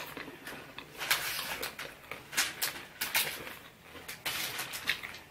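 Irregular crunching of a candy-coated chili-nut M&M being chewed, a string of short, sharp crunches starting about a second in.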